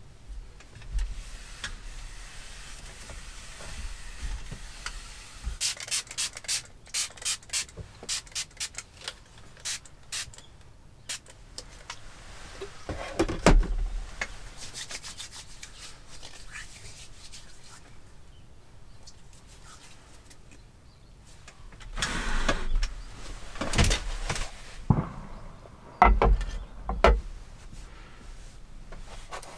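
Handling sounds at a wooden table: paper rustling, then a quick run of sharp clicks, a single knock, and near the end a cluster of knocks and thuds as things are set down, among them a metal hot sandwich maker.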